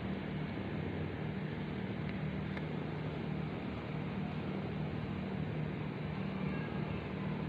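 Domestic cat purring steadily, a low rumble that swells and eases every second or so with its breathing.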